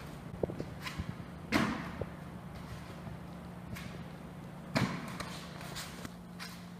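Two dull thuds about three seconds apart as a foam roller is thrown and caught by hand.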